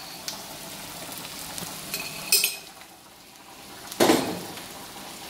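Diced onions frying in a pan with a steady sizzle, while a metal spoon clinks as ginger-garlic paste is scooped from a jar into the pan. There is a brighter clatter about two seconds in and a louder knock about four seconds in.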